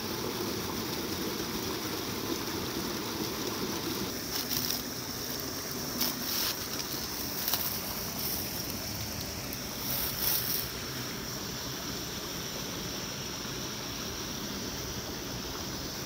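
Small mountain stream and waterfall rushing steadily over rocks, with a few brief crunches of footsteps on dry leaves and stones about four, six, seven and ten seconds in.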